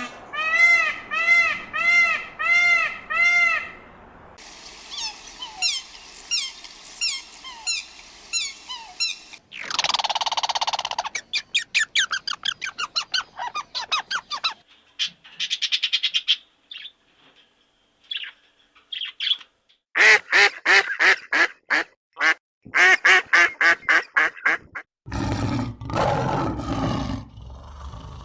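A run of short, different animal calls, mostly birds. It opens with about six repeated arching calls, then a stretch of high falling chirps, then quick trains of short calls with gaps between them, and ends in a rougher, noisier stretch.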